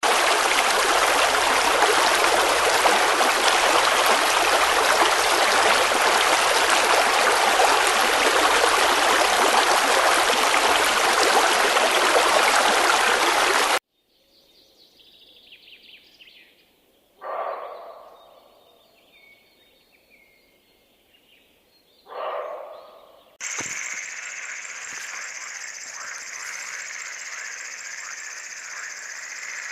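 Rushing water, like a stream or waterfall, for about fourteen seconds, cutting off suddenly. Then near quiet broken by two short sounds about five seconds apart. About three seconds later a steady high insect chorus, like crickets, starts and runs on.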